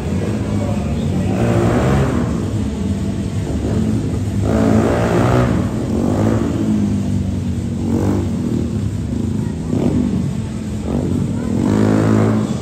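Motorcycle engines idling with a steady low hum, revved up several times, each rev rising and falling in pitch.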